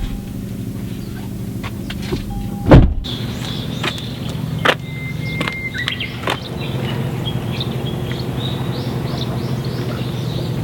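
Car engine running steadily, with one heavy thump about three seconds in and a few sharp clicks.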